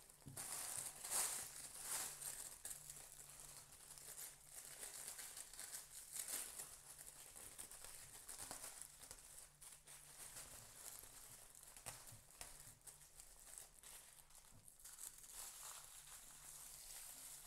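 Clear plastic roasting bag crinkling and rustling faintly under the hands as kitchen twine is wrapped and tied around it, with a few louder crinkles about one and two seconds in.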